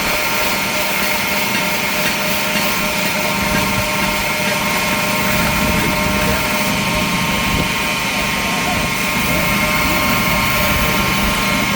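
Knife-making belt grinder running steadily, a constant machine whine and grinding noise with no hammer blows.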